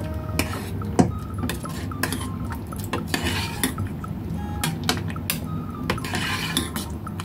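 Metal ladle stirring and scraping in a stainless steel pot of thick coconut-milk porridge, clinking against the pot's sides and bottom. The sharpest clink comes about a second in, with longer scrapes around three and six seconds in.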